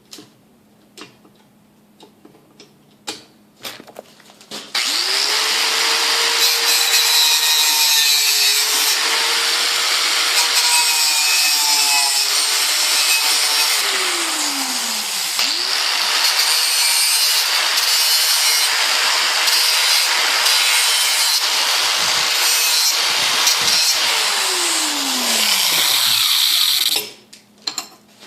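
A few light clicks, then an electric grinder grinding a small steel latch catch for about 22 s. The motor's whine sags in pitch twice, and the grinding stops suddenly near the end.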